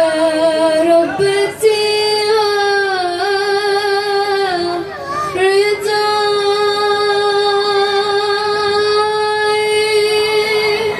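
A young girl singing solo in Yemeni style, holding long notes with wavering ornaments, taking a short break about halfway through and then sustaining a new long note.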